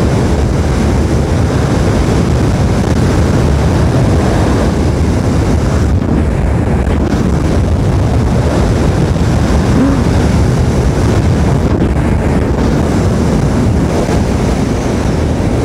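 Loud, steady wind rush over the microphone of a Yamaha Aerox 155 scooter riding at speed, with its engine running underneath.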